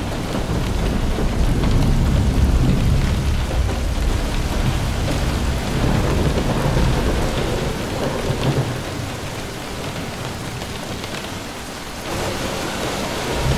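Heavy rain pouring down with a deep, rolling rumble of thunder underneath. The rumble swells in the first few seconds, eases off later, and rises again near the end.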